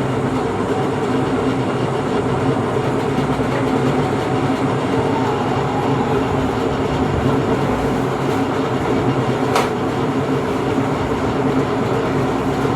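Steady mechanical hum with a rushing noise, even in level throughout, with a faint click about two-thirds of the way in.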